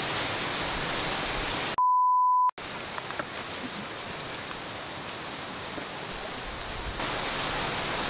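A single steady beep, well under a second long, about two seconds in, dubbed over the audio with all other sound cut out around it: an edited-in bleep masking a word. Around it, a steady outdoor hiss of drizzle and running water.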